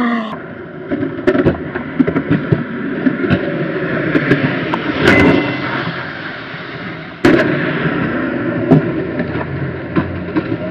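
Skateboard wheels rolling on concrete, with several sharp clacks from the board popping and landing; the loudest come about five and about seven seconds in.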